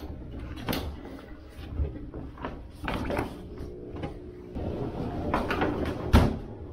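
Laundry being handled at a front-loading Wascomat washing machine: rustling clothes and a run of clicks and knocks from the machine's door and drum, with one sharp bang about six seconds in.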